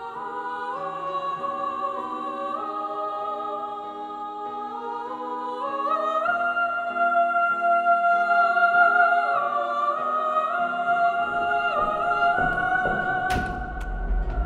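Girls' choir singing sustained chords in harmony, the parts moving in steps and swelling louder toward the middle. Near the end a single sharp click is followed by a low rumble.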